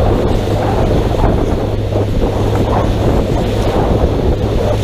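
Wind buffeting the microphone on a pontoon boat under way, over a steady low hum from its outboard motor and the rush of water along the hull.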